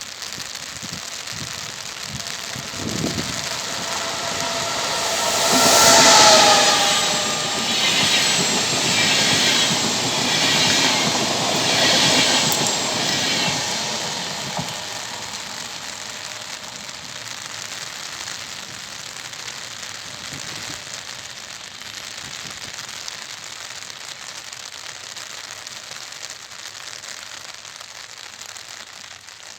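A regional train hauled by an E464 electric locomotive passes through the station at speed. It is loudest about six seconds in, with a faint whine that drops slightly in pitch. The coaches then clatter by in a rhythmic run that fades out by about fifteen seconds. Heavy rain hisses steadily throughout.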